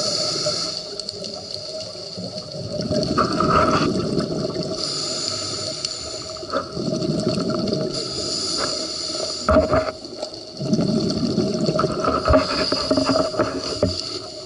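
Scuba regulator breathing underwater: the hiss of each inhalation alternates with the rushing gurgle of exhaled bubbles, a cycle about every four seconds.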